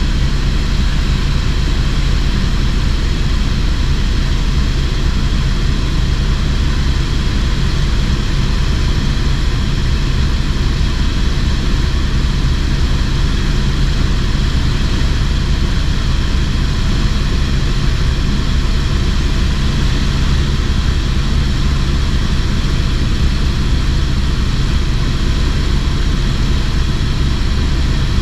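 Helicopter engine and rotor noise heard from on board in flight: a loud, steady drone with a low, even throb and a hiss above it, unchanging throughout.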